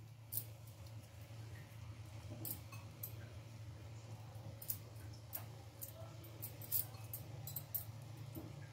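Faint soft clicks and squishes as boiled eggs are pressed by hand into cooked biryani rice in a pot, with small taps of a slotted spoon, over a low steady hum.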